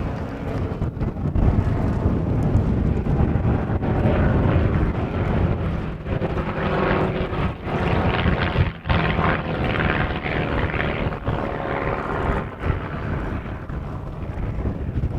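Small propeller-driven aerobatic biplanes flying a display, their piston engines and propellers droning and swelling in the middle before fading. Wind rumbles on the microphone throughout.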